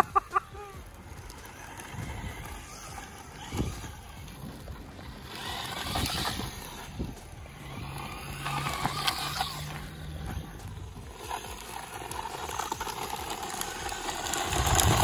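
Rlaarlo AM-D12 RC desert truck on a 2S battery driving hard over loose gravel: electric motor running and tyres scrabbling over stones. It swells louder as the truck passes close, loudest near the end, with a single knock a few seconds in.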